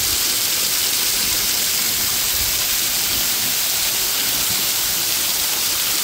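Thin streams of a small waterfall splashing onto wet rock close by, a steady, even hiss.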